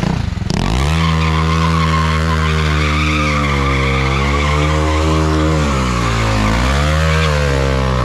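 Sport motorcycle engine climbing to high revs about half a second in and held there while the rear tyre spins and squeals on tarmac, as in a burnout or donut. The revs dip briefly twice past the middle.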